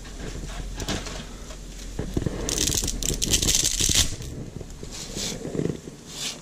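Rustle of dry spaghetti being drawn out of its cardboard box, then a dense burst of sharp crackling cracks about two and a half seconds in as the bundle of dry spaghetti is snapped in half by hand.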